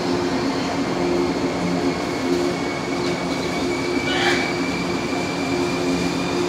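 The Royal Express sightseeing electric train moving past along a station platform: the steady running hum of its cars, with a thin high squeal from about two seconds in.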